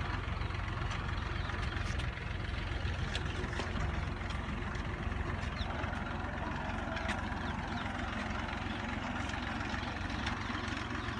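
Farm machinery engine, most likely a tractor working the potato harvest, running steadily with a low rumble, with scattered light clicks and knocks over it.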